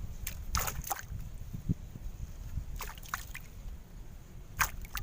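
A few short water splashes and sloshes, one cluster about half a second in, another about three seconds in and a sharp one near the end, over a low steady rumble of wind on the microphone.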